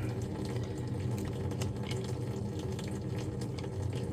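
Water running from a hose into a drain jetter's water tank as it is topped up, over a steady low hum.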